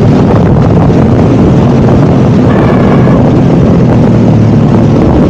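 Motorcycle engine running steadily while riding, with wind on the action camera's microphone. About two and a half seconds in, a brief, faint high-pitched cry sounds over it; the rider cannot tell what it is and wonders whether it is a cat.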